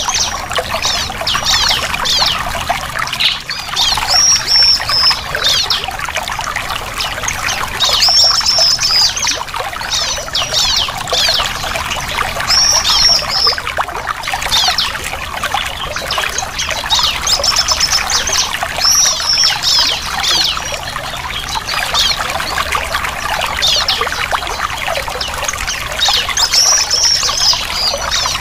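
Bar-winged prinia (ciblek) calling over and over, short high chirping phrases every couple of seconds, over continuous trickling water.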